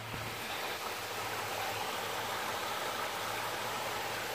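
Shallow creek water rushing and splashing steadily over small cascades on layered rock ledges, with a faint low hum underneath.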